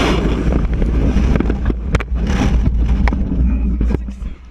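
Wind rushing and buffeting over a GoPro's microphone as a static-line paratrooper falls away from a C-17, with a heavy low rumble and a few sharp snaps. The rush drops off near the end.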